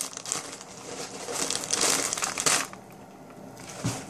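Packaging wrap crinkling and rustling as it is pulled open by hand; the crinkling eases off a little after halfway, and a short dull thump follows near the end.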